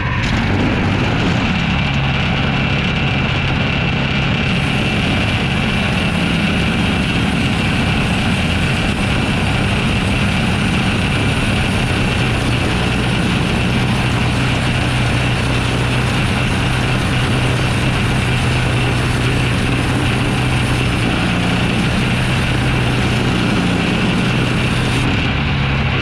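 Woodland Mills HM130MAX portable bandsaw mill running steadily under load, its engine and band blade sawing lengthwise through a log.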